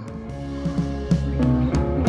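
Background music, an instrumental with plucked guitar notes, growing louder towards the end.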